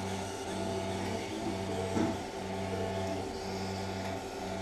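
Motorised arthroscopic shaver running in short runs, a low mechanical hum that cuts out and starts again every second or so while it cleans the joint. A soft knock about two seconds in.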